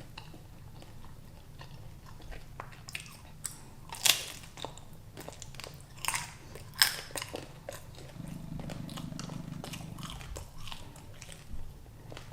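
Close-up chewing with sharp crunchy bites, typical of eating prawns shell and all. The loudest crunches come about four, six and seven seconds in, and a low steady hum runs for about two seconds after that.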